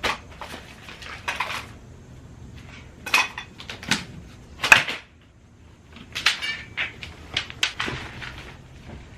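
Objects being picked up, moved and set down while rummaging through a pile of stored belongings: a series of sharp knocks and clatters with short rustles, the loudest knock about halfway through.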